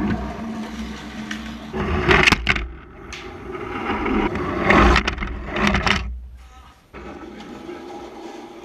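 Carrera slot cars whirring on a plastic track, with sharp clattering knocks about two seconds in and again around five seconds in as cars crash off the track.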